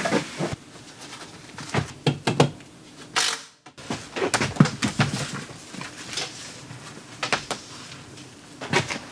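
Scattered knocks and light clatter of tools and timber being handled on a worksite floor.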